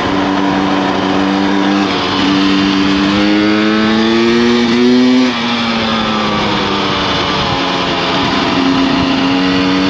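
Beta 300RR's single-cylinder two-stroke engine pulling the bike along under throttle. Its note climbs steadily for about five seconds, drops suddenly, then holds fairly steady with a slight rise near the end.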